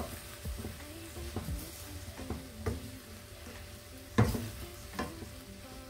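Wooden spatula scraping and knocking against a stainless steel wok as noodles and vegetables are tossed in a stir-fry, over a light sizzle. The loudest knock comes about four seconds in.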